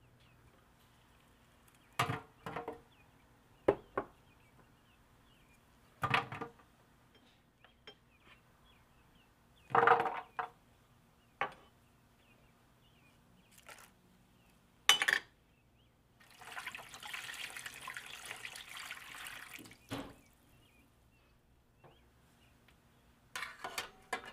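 Vegetable pieces and garlic cloves dropped one at a time into an empty stainless steel roasting pan, giving a series of sharp knocks on the metal. Then water is poured in for about three seconds, and a wire rack clinks as it is set into the pan near the end.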